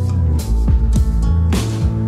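Background music: held bass notes under repeated drum hits with a steady beat.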